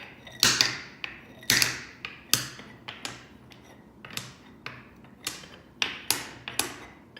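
Wooden beads knocking and clacking, about a dozen sharp, irregularly spaced taps.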